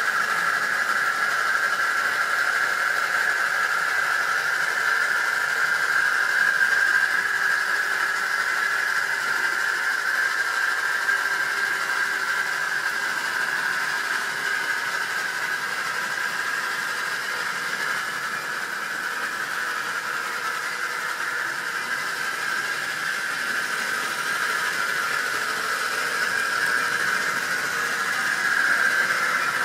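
Model railway train running round the track: a steady high whine from the locomotive's electric motor and wheels on the rails, dipping a little midway and growing louder near the end as the train comes past.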